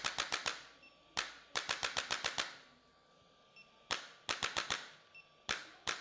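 Sharp cracking pops like joints popping during a chiropractic adjustment. They come in groups, each a single crack followed by a quick run of about six, and the group repeats every two seconds or so.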